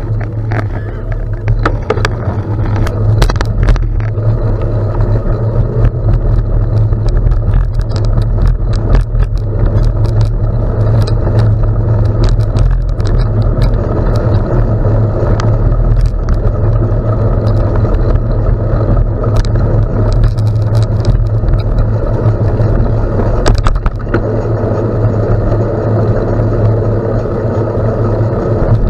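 Wind buffeting the microphone of a camera riding along on a bicycle, a heavy steady rumble, with the tyres rolling over gravel and frequent sharp clicks and rattles from stones and the bike.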